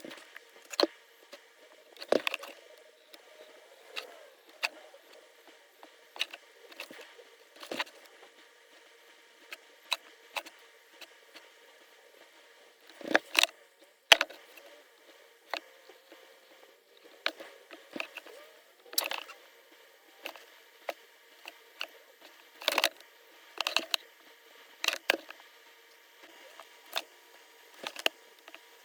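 Stippling iron pressed again and again into the polymer grip of a Glock 30SF pistol frame, giving light ticks and taps at irregular intervals, about one a second, over a faint steady hum.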